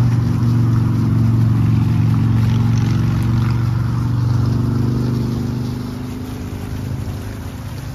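An engine running steadily with a low, even pitch, starting abruptly and fading away from about five seconds in.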